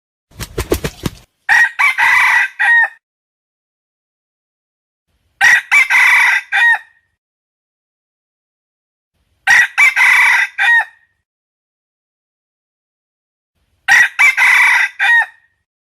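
Red junglefowl rooster crowing four times, a short clipped crow of about a second and a half roughly every four seconds. Just before the first crow comes a quick run of low thumps.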